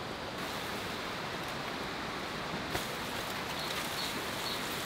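Dry palm fronds rustling and crackling as they are handled, with one sharp crack nearly three seconds in, over a steady rushing outdoor noise.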